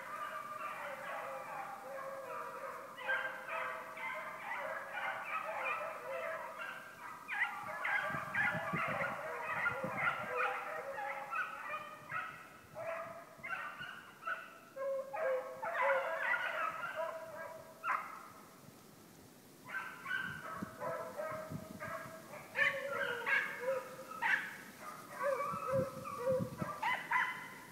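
A pack of hunting hounds baying in chorus on a rabbit's trail, many overlapping howling barks. The calls break off for a moment about two-thirds of the way through, then resume.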